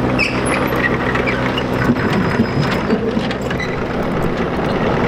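Mini excavator's diesel engine running steadily as it works onto a trailer's ramps, with scattered short clicks and knocks over it.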